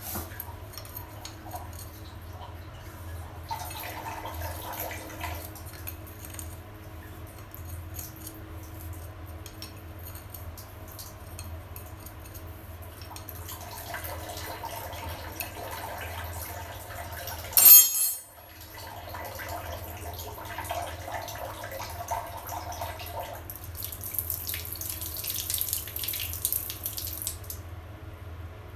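Ring spanner turning a concealed tap's valve cartridge loose from its wall fitting: several stretches of scraping and hissing, with a sudden loud clack about eighteen seconds in. A steady low hum runs underneath.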